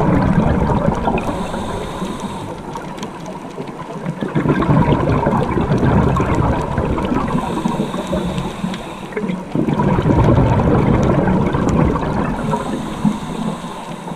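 Scuba diver breathing through a regulator, heard underwater: a short hissing inhale about every five to six seconds, three in all, with a long loud rush of exhaled bubbles between them.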